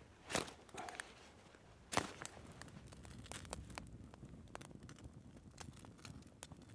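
Small campfire of sticks and twigs crackling, with a couple of sharp pops, the loudest about two seconds in, then a steady run of small crackles.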